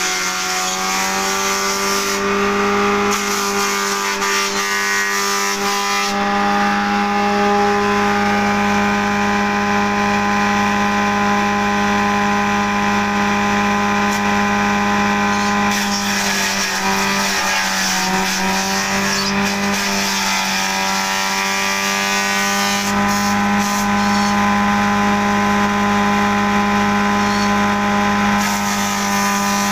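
Grass chopper driven by a 1 hp electric motor, running with a steady loud hum while chopping elephant grass fed in by hand. Its pitch wavers and sags briefly about halfway through as the stalks load the cutter.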